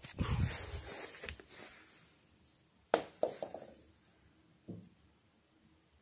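Rumbling and rustling of a handheld phone being moved about, then a quick run of three or four light knocks about three seconds in and one softer knock near five seconds.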